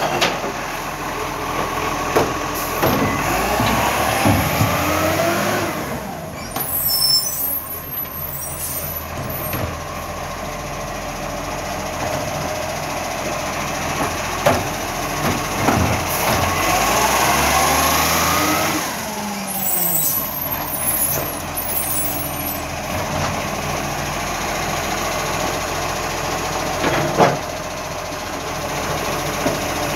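Side-loading garbage truck running, its engine revving up and down twice as the hydraulic arm lifts and tips a wheelie bin. A burst of hissing follows each lift, and a sharp knock comes near the end.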